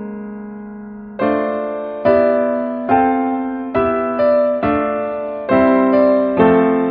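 Background piano music: a held chord fading, then new chords struck about once a second, each ringing and fading.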